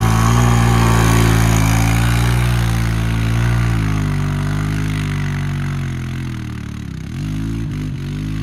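Honda 350 ATV engine running under throttle as the quad pulls away on a muddy trail. Its pitch holds fairly steady, then dips about seven seconds in and wavers up and down as the throttle is eased and reopened.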